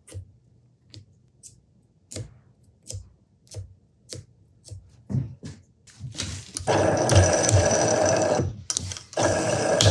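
Thin wooden sticks scraping grease and dirt out of the keyway of a Jacobs drill chuck: a short, sharp scrape roughly every half second to second. About six seconds in, a much louder steady rushing hiss takes over, breaks off briefly, then starts again.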